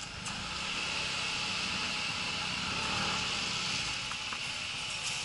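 Motorcycle engine running steadily at low speed, a low pulsing rumble under a steady high hiss.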